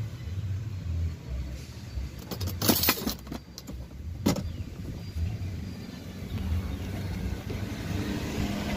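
Kitchen knife clicking against a stone mortar while fried tofu and tempeh are cut into it: a quick cluster of sharp clicks about two and a half to three seconds in and one more just after four seconds. A steady low rumble of road traffic runs underneath.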